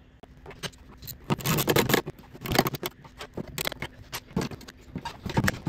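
Hand wrench tightening the nuts on a new brake booster's mounting bolts: a series of irregular short bursts of metallic clicking and scraping, the longest about a second in.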